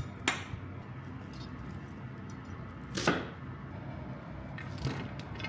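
Three separate sharp knocks, like kitchenware being handled or set down during cooking: one just after the start, the loudest about three seconds in and a lighter one near the end. A low steady hum runs underneath.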